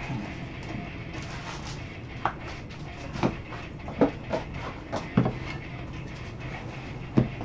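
Trading cards and a clear plastic card holder being handled with gloved hands: several sharp plastic clicks and knocks, over a low steady hum.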